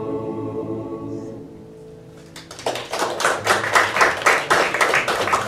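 The final held chord of a church choir anthem fading away, followed about two and a half seconds in by the congregation applauding.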